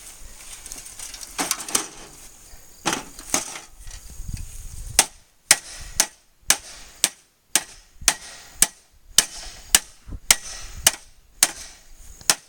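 Metal parts of a broken-apart microwave oven being struck hard. A few scattered knocks and scrapes come first, then about five seconds in a steady run of about fourteen sharp bangs, roughly two a second.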